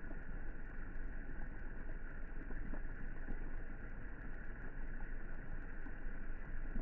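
Rain falling steadily onto a swimming pool's water: an even, continuous rush of noise with faint scattered drop ticks.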